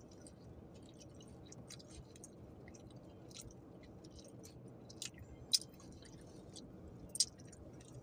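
A person chewing food with the mouth close to the microphone, with soft wet mouth clicks throughout. Two sharper clicks stand out, about five and a half and seven seconds in.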